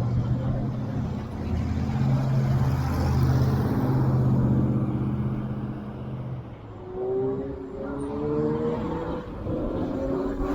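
Street traffic: a motor vehicle's engine hums low and steady for several seconds, then fades. Near the end, a rising whine of a vehicle speeding up follows.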